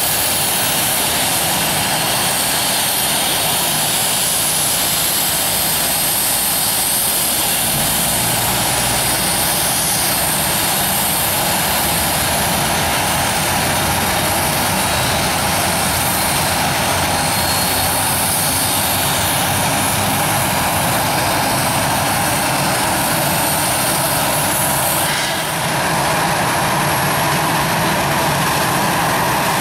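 Airbus A319 jet engine running close by: a loud, steady rush with a high whine on top. The sound changes in character suddenly about 25 seconds in.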